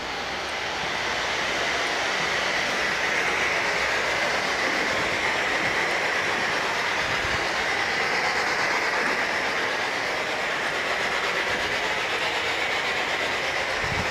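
Spirit Box sweeping through radio frequencies: a steady, loud rush of radio static that switches on abruptly just before and runs without a break.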